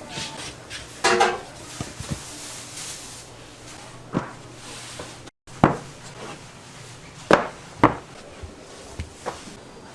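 Kitchen work: a string of sharp, separate knocks and clacks of utensils or boards, about half a dozen, with a short pitched squeak or clatter about a second in.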